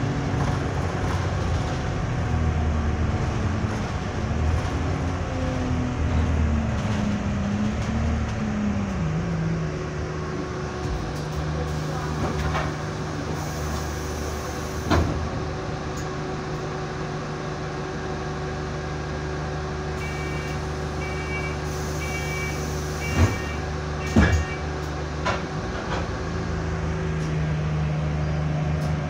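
Alexander Dennis Enviro200 bus's diesel engine heard from inside the saloon, its note falling as the bus slows over the first several seconds, then running steadily at idle. Twice there is a hiss of air, with a short run of beeps and a couple of sharp clunks in the second half, and the engine note rises again near the end.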